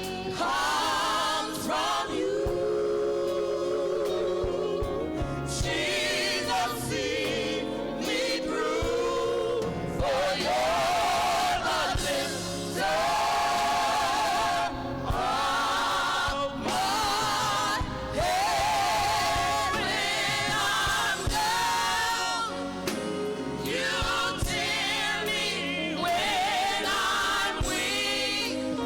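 Choir singing a gospel song with instrumental accompaniment, in phrases with short breaks between them.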